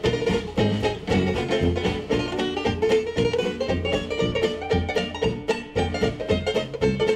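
Upbeat background music with plucked strings over a steady beat.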